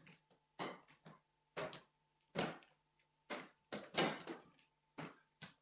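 Footsteps on a wooden sports-hall floor: short, irregular thuds about one a second, over a faint steady hum.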